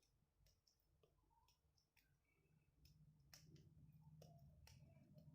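Near silence with a scattering of faint, irregular clicks, and a low hum that grows slightly louder about halfway through.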